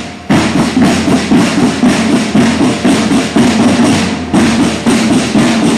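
Snare drums beating a steady marching rhythm of quick, even strokes, breaking off briefly near the start and again about four seconds in.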